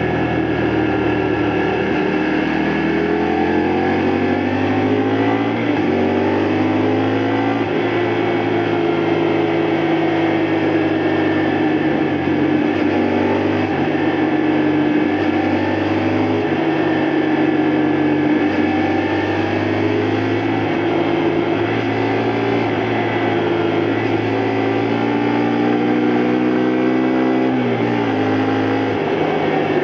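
2002 Honda Varadero 125's V-twin engine under way, its revs rising and falling through the gears, with brief drops at gear changes.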